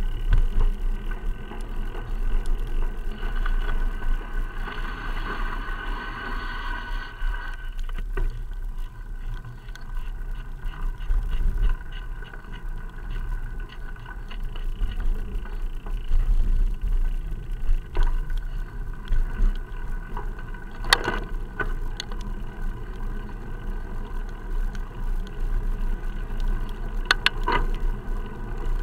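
Riding noise picked up by a bicycle-mounted action camera sealed in a waterproof case: a steady, muffled low rumble from the bike's vibration and road, with a few sharp knocks, one about two-thirds of the way through and two close together near the end.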